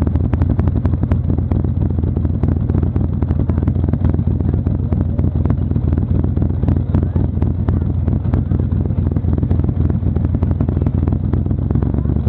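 Car engine running at low, steady revs with a deep even rumble as the car rolls slowly, mixed with road noise and many sharp ticks.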